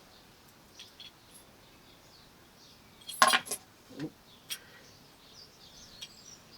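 A sharp metallic clink about three seconds in, followed by a few lighter clicks over the next second and a half, as steel parts of a clamp magnet kit (magnet, eye bolt, washers) are handled; faint birdsong in the background.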